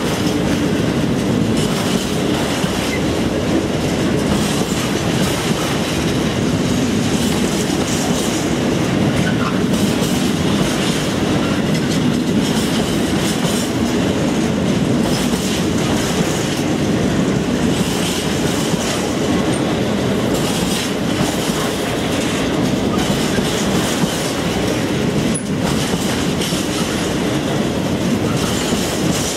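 Freight train of empty container flat wagons rolling past close by: a steady, loud rumble and clatter of wheels on the rails.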